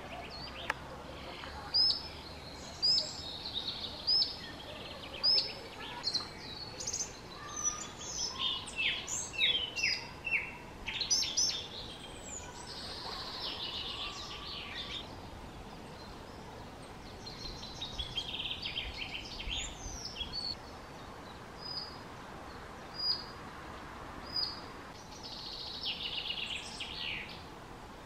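Small songbirds calling: a short high chirp repeated about once a second, then runs of quicker, varied chattering notes, then spaced single chirps again with another chattering run near the end, over steady background noise.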